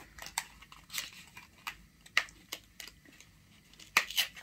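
A phone box's cardboard insert handled by fingers, giving irregular crinkles and small sharp clicks as the SIM ejector tool is worked loose from it. The loudest clicks come about two seconds in and near the end.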